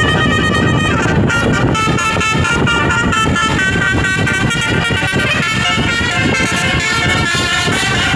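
Multi-tone 'telolet' bus horn playing a tune of stepped notes, over the steady rumble of the bus running.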